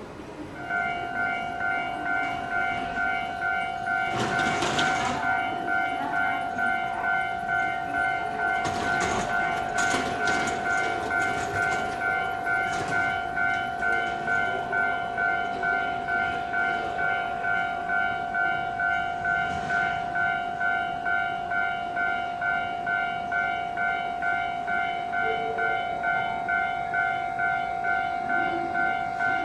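An electronic railway warning alarm: a steady, high electronic tone pulsing about twice a second. Metallic clanks and rattles of train movement sound over it a few times in the first half.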